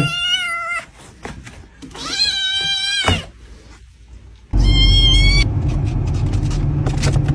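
A cat crying in long, wavering meows: one trailing off at the start, a longer one about two seconds in that drops in pitch as it ends, and a short high one about four and a half seconds in. A loud low rumble comes in with the last meow and continues.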